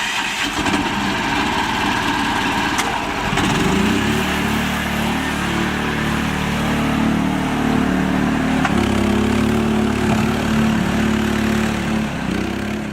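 Tractor engine running with a rough, pulsing beat, then revving up about four seconds in and holding a steady higher speed.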